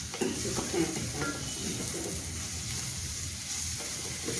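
Sliced button mushrooms sizzling in hot sesame oil on a high flame, a steady hiss with a few light knocks in the first second or so.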